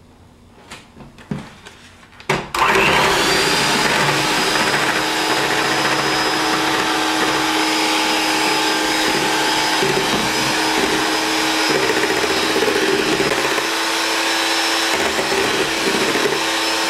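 A few soft knocks, then an electric hand mixer switched on with a click about two seconds in and running steadily with a high motor whine as its beaters churn beaten egg whites into custard.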